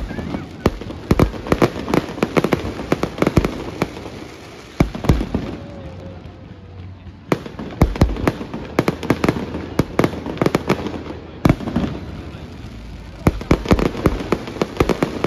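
Fireworks display: rapid volleys of sharp bangs and crackles from aerial shells bursting. The volleys thin out between about four and seven seconds in, then build again to a dense run near the end.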